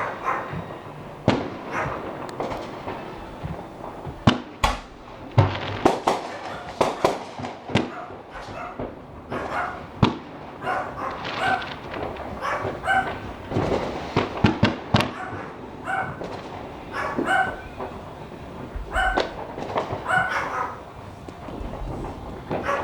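Fireworks going off, with sharp bangs and crackles throughout. From about halfway, a dog yips and barks repeatedly among the bangs.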